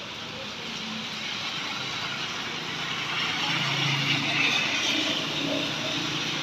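Rain and hail falling steadily on a wet road, with cars and a motorcycle driving through the slush, tyres hissing on the wet road. The passing traffic is loudest about three to five seconds in.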